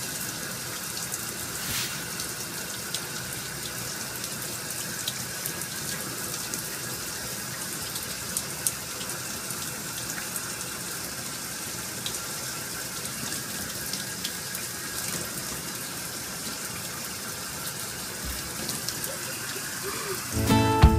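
Hot water running in a steady stream, with a few faint ticks over it.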